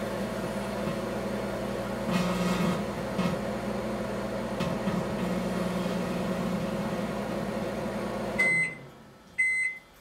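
Microwave oven running with a steady hum while a halved grape inside arcs into plasma, the electrical discharge adding a louder 120 Hz buzz at moments. Near the end the oven shuts off and beeps twice.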